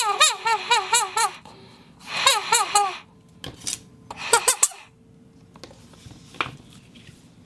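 Foley animal-speech effect: high-pitched, warbling creature chatter like a small animal talking or giggling, in three short bursts over the first five seconds. A few sharp clicks follow.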